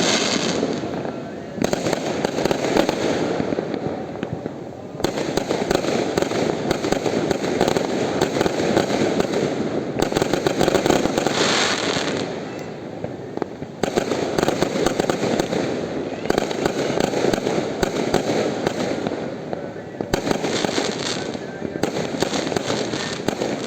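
Fireworks going off in a dense, continuous barrage of bangs and crackles, with new surges every few seconds.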